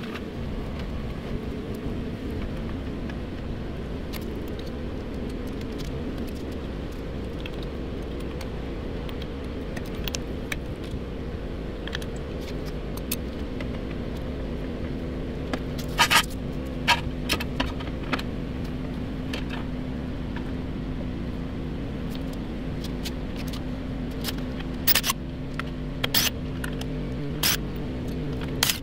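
Sharp metal clinks and clanks as a steel floor jack and jack stand are handled under the truck, in two clusters: one about halfway through and several more near the end. A steady low mechanical hum runs underneath throughout.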